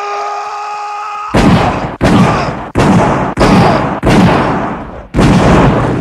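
A man's long held yell cuts off at a burst of six loud handgun shots from a film soundtrack, each with an echoing tail. The shots come about two-thirds of a second to a second apart.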